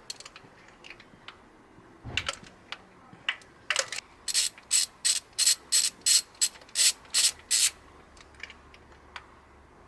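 Socket ratchet clicking while a spark plug is being loosened. A few scattered clicks come first, then a steady run of about three clicks a second, which stops near the end.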